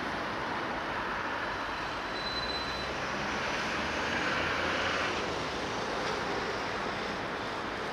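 Steady rushing noise that swells a little in the middle and eases about five seconds in.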